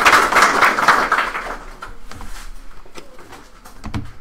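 Audience applauding, the clapping dying away about a second and a half in, then a few scattered claps and knocks with a low thump near the end.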